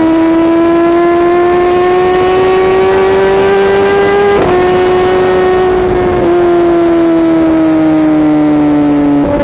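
Kawasaki ZX-10R inline-four engine through a Mivv aftermarket exhaust, under way. The engine note climbs slowly, drops abruptly about four and a half seconds in as the rider shifts up a gear, then holds and slowly winds down toward the end.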